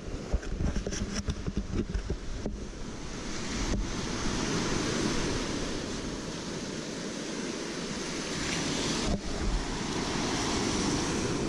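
Surf waves washing up the beach, the wash swelling and easing, with a few sharp knocks in the first four seconds and another near the end.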